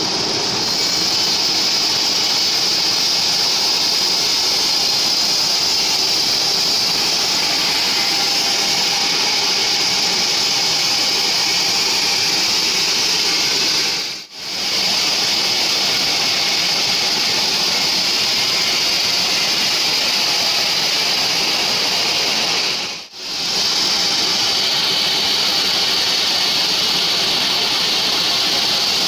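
Large band sawmill's blade ripping lengthwise through a mahogany log: a loud, steady, high hiss of the saw cutting. The sound drops out briefly twice.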